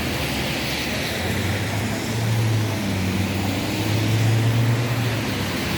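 Traffic on a rain-wet street: a steady hiss, with a vehicle engine's low hum coming in about a second in and fading out near the end.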